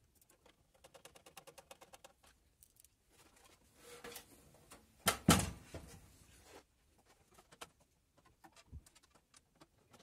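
Small metal clicks and rattles of screws and a screwdriver being handled against a steel PC case while an SSD is screwed into its drive bay. There is a quick run of ticks about a second in and one louder knock a little after five seconds.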